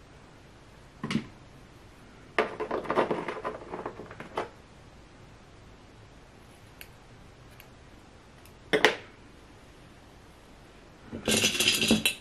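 Four short, separate bursts of handling noise: light clatter and rustling as scissors and the wig's hair are handled close to the microphone. The longest burst lasts about two seconds, and the last, just before the end, is the brightest.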